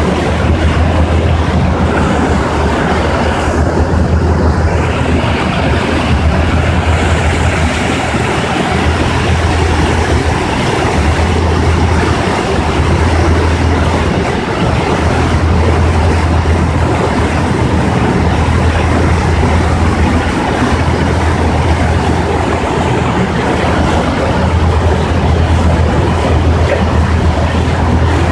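Passenger ferry ride: the ship's engine drones steadily with a low hum that swells and eases every few seconds, over a constant rush of water and wind noise.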